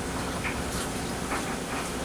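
Kenmore 41162 front-load washer running in its rinse cycle: a steady mechanical drone with a few light rattles, over the steady noise of a running electric dryer.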